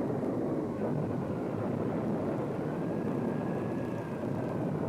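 Film storm sound effects of a typhoon at sea: a steady rush of wind and heavy water, with a faint whistle of wind that rises and falls slightly in the middle.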